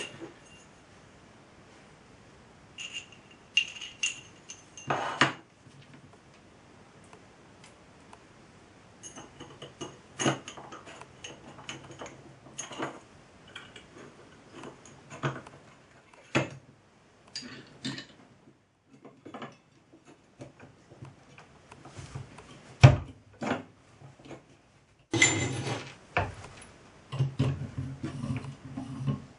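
Irregular clicks and knocks of small hard objects being handled, with a low hum that comes and goes.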